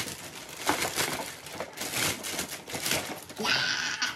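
Clear plastic bag crinkling and rustling in quick handfuls as a cardboard box is slid out of it, with a longer steady rustle near the end.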